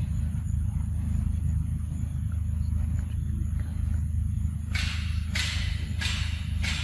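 A young macaque chewing and slurping a ripe mango close by, giving four short wet bursts about half a second apart near the end, over a steady low rumble.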